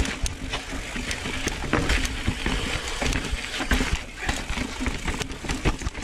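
2020 Ibis Ripley NX mountain bike riding down a rocky dirt trail: tyres rolling over dirt and stones with frequent sharp clicks and rattling knocks from the bike, over a steady rush of wind noise.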